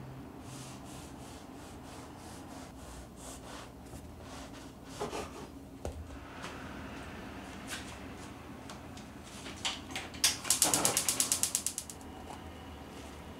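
Bread knife sawing through a loaf of soft white sandwich bread on a wooden cutting board: back-and-forth rasping strokes about three a second, then a few knocks as the slice comes off. Near the end, a short, loud rattling run of quick clicks.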